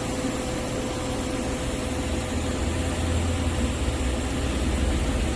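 Steady hiss of a TIG argon welding arc on carbon steel pipe during a fill pass, over a low machine hum with a faint steady whine.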